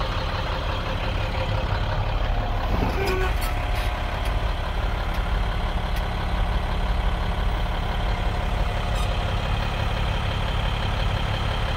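International 4300 truck's diesel engine idling steadily, heard from inside the cab, with a few light clicks about three to four seconds in.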